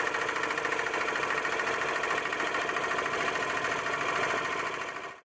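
Homemade scroll saw driven by an electric lawn mower motor, running steadily with a fast even chatter as its blade cuts a thick ash board. The saw is a bit too loud, which the builder puts down to the bearing on the drive disc being noisy as it moves in the yoke. The sound fades and cuts off suddenly near the end.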